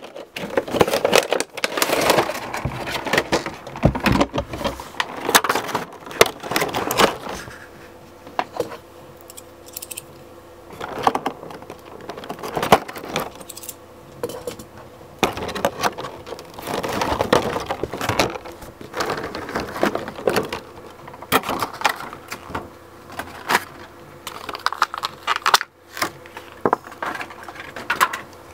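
Hands handling a prize figure and its plastic and cardboard packaging: irregular rustling, crinkling and small clicks and knocks of plastic parts, coming in uneven bursts.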